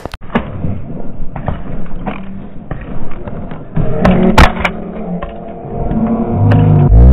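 Scattered knocks, thumps and scuffing of a close struggle, with a low drone building near the end.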